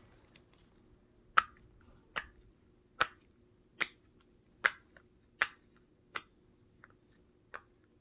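Bear-shaped silicone pop-it fidget toy having its bubbles pressed one at a time, with a sharp pop a little under once a second, about nine pops in all.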